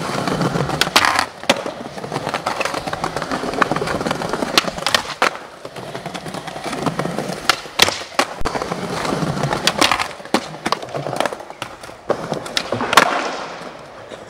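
Skateboard wheels rolling on smooth stone paving, broken by repeated sharp clacks of the board snapping and landing. Metal trucks scrape along a marble ledge during a grind.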